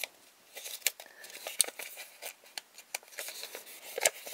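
Crisp, irregular crinkling and rustling as hands handle a plastic bag and a folded paper collector's guide.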